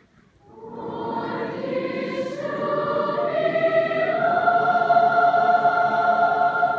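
Choir singing: after a brief pause the voices come in about half a second in, swell, and settle on a long held chord.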